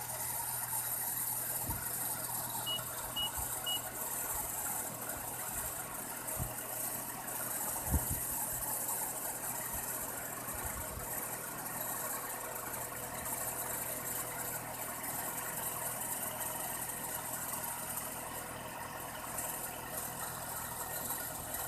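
Nissan X-Trail T31's 2.5-litre four-cylinder petrol engine idling steadily, with a few dull low thumps and three short faint beeps about three seconds in.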